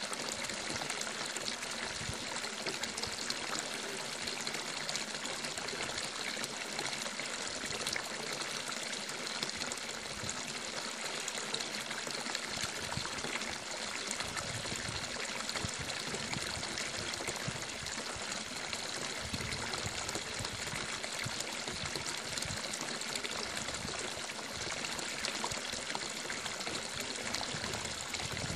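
Running water, steady and unbroken.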